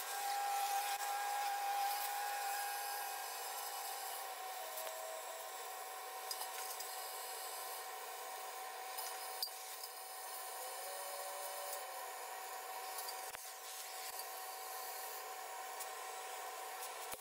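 Oxy-fuel gas cutting torch hissing steadily as it cuts a circle out of a steel wheel centre, with a steady whistling tone running under the hiss.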